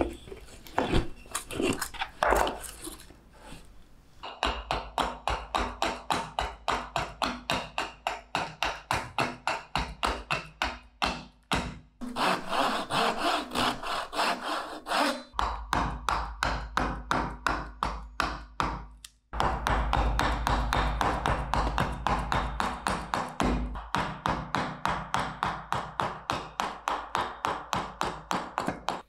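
A few knocks of wood being set down, then a hand saw cutting through a wooden blank in steady back-and-forth strokes at about three a second, pausing once briefly before carrying on.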